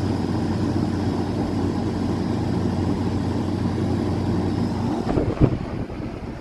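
Outdoor heat pump unit running: a steady compressor and fan hum with a faint high whine. About five seconds in the low hum drops away, and a single knock follows shortly after.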